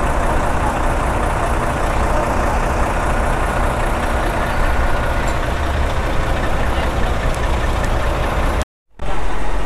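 Heavy truck diesel engine idling steadily with a deep low drone, from the UD Quester GWE 370 tractor unit hauling the loaded lowbed. The sound cuts out completely for a split second near the end, then resumes.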